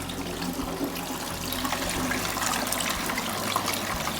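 Water pouring steadily into the top-fill opening of a 5.5-gallon ultrasonic humidifier's tank, splashing and trickling.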